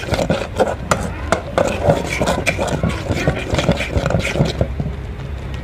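A spatula scraping and knocking against a pan while stirring a sizzling, frying fish paste, in quick irregular strokes. The stirring stops a little before the end.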